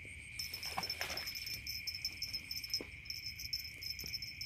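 Night insect chorus: a steady high drone of crickets, joined about half a second in by another insect's rapid, higher-pitched pulsing chirps. A couple of soft knocks sound underneath.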